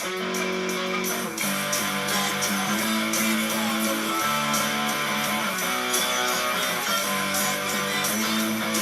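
Punk rock song led by electric guitar strumming chords that change every second or so.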